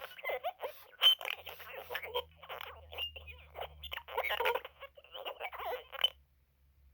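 Re-released 2001 Furby's speaker sputtering out glitched, chopped-up fragments of its voice with squeaky chirps, its audio breaking up as the battery power is interrupted. It cuts off suddenly about six seconds in.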